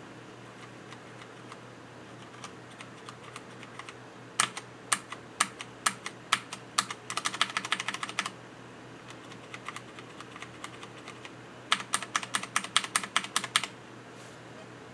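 Hansung GO184 mechanical keyboard with Cherry MX Black linear switches and PBT keycaps being typed on. A few soft keystrokes come first, then single firm strokes about two a second from about four seconds in. These break into a fast run of typing around seven seconds in, and again near the end.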